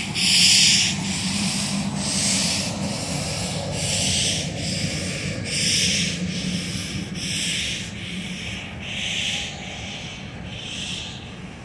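Steam locomotive US Sugar 148, a 4-6-0, exhaust chuffing at low speed, a little over one beat a second with strong and weaker beats alternating, growing fainter as it moves away.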